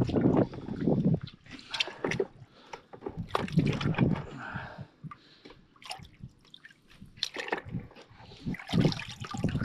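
Water sloshing and splashing in a bucket as a muddy pistol is swished and scrubbed clean by gloved hands, in irregular bursts.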